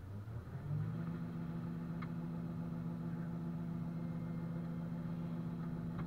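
Combine harvester's engine heard from inside the cab, rising in pitch in the first second and then running steadily, as the unloading auger pours soybeans into a grain truck.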